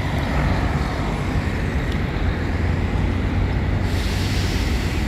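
Motor vehicle engine running with a steady low rumble amid road traffic noise.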